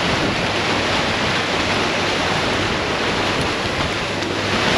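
Churning wake water behind a sailing catamaran under way: a steady rush of foam and breaking water.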